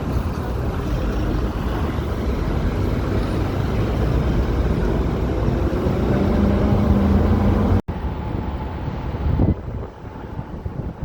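Wind buffeting the microphone over city street traffic, with a vehicle's low engine hum growing louder about six seconds in. The sound cuts off abruptly just before eight seconds in and comes back quieter soon after.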